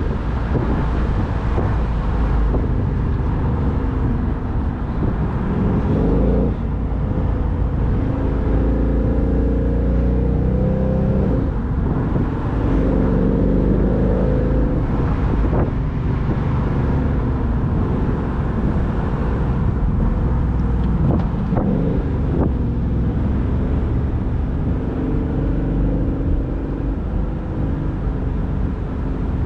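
A 2019 Ford Mustang GT's 5.0-litre V8 pulling uphill at moderate revs, its pitch rising and falling several times as the car speeds up and eases off. Heavy wind rumble and tyre noise come through the open convertible top.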